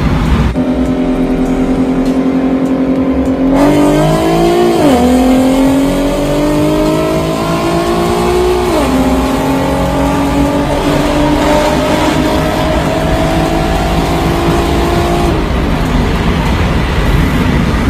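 BMW's engine heard from inside its cabin during a roll race. It holds a steady speed, then goes to full throttle about three and a half seconds in. The revs climb, drop with quick upshifts at about five and nine seconds in, then pull slowly upward in the next gear until it eases off near the end.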